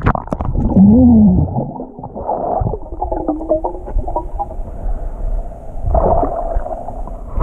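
Muffled underwater sound of a fast tidal current: a dull rush of water with gurgles, and a wavering tone that rises and falls about a second in.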